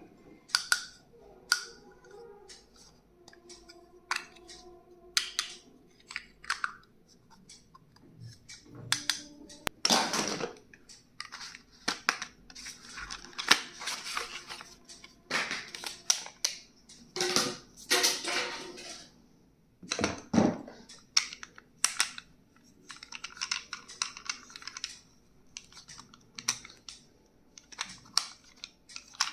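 Clicks, taps and rustling of plastic packaging and stationery items being unboxed and handled by hand, in irregular bursts.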